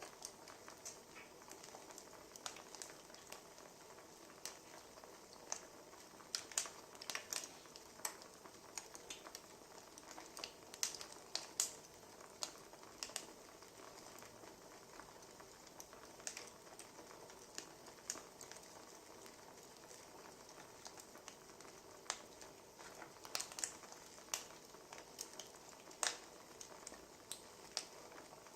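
Wood fire crackling: a soft steady hiss with irregular sharp pops and snaps, coming in quick clusters at times.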